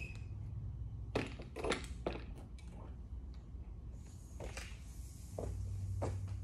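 A long metal hanger pole and a clothes hanger knocking and clattering a few times as a T-shirt is lifted up onto a high wall hook, with some fabric rustle, over a steady low hum.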